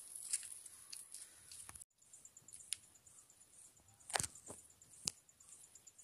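Faint rural outdoor ambience: insects chirping in a high, steady run of rapid, even pulses, with a few sharp clicks or taps, the loudest about four seconds in.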